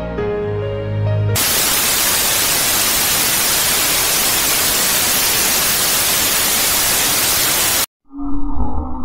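Loud, steady white-noise static, like a dead TV or video feed, follows a second of soft melodic music. The static cuts off abruptly near the end, there is a moment of silence, and a low drone begins.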